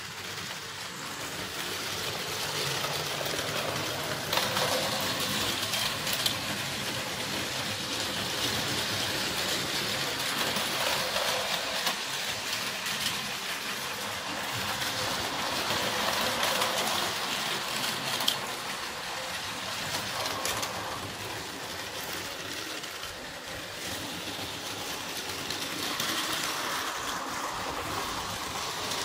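Several battery-powered Plarail toy trains running on plastic track: a steady whirring rattle of small motors and wheels on the rails that swells and fades as trains pass close, with a few sharp clicks.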